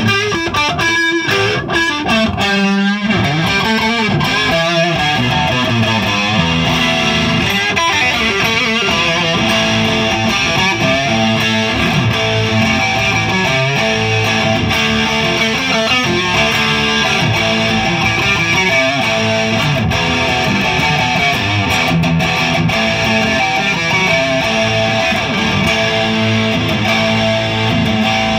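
Dean Dime Razorback electric guitar on its Ironstone neck humbucker, played through a distorted Marshall JCM 900 100-watt amp. Fast picked lead lines with bent notes in the first few seconds, then steadier sustained playing.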